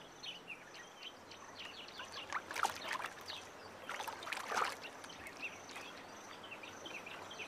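Lions wading through shallow boggy water, with irregular splashing and sloshing footfalls, the biggest splashes a few seconds in. A faint steady high insect trill runs behind.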